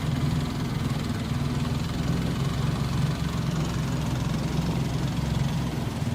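Small boat's engine running steadily at an even pace.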